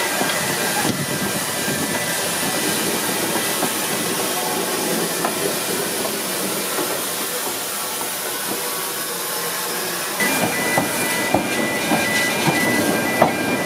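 NGG16 Garratt steam locomotive No. 143 hissing steam as it pulls slowly out. From about ten seconds in its carriages follow, with irregular clicks and knocks from the wheels on the track and a faint high squeal.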